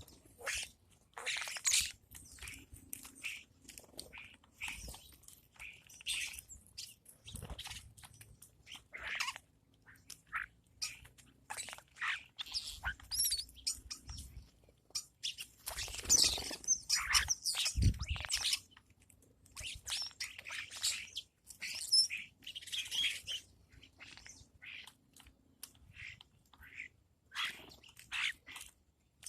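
Birds chirping and squawking in short, irregular calls, busiest about halfway through.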